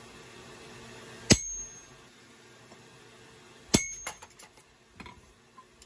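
Two hard hammer blows on a handled eye punch set into a red-hot 4140 steel hammer blank on an anvil, about two and a half seconds apart, each a sharp metallic strike with a brief ring. A few lighter clinks and knocks of steel follow.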